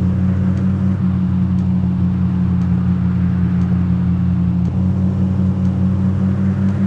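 Mahindra Thar 4x4's engine running at steady revs while driving off road, a constant drone that holds an even pitch.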